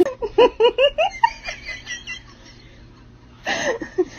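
A person giggling: a quick run of short rising laughs for about the first second, then another short burst near the end.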